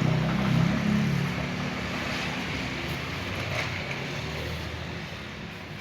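A motor vehicle going past, its engine hum fading away as it recedes.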